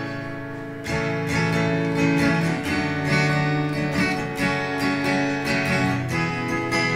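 Acoustic guitar with a capo, strummed in a steady rhythm as the instrumental intro to a song. A soft chord rings at first, and the strumming gets louder about a second in.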